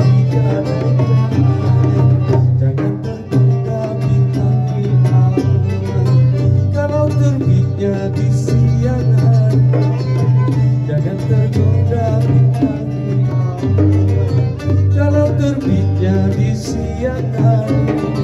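A small live band playing together: electric keyboard, electric bass carrying a strong bass line, violin and a hand-struck frame drum.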